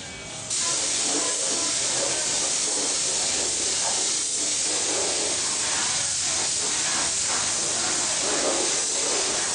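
Hand-held compressed-air gun spraying at a steel chassis frame: a loud, steady hiss of air that starts suddenly about half a second in.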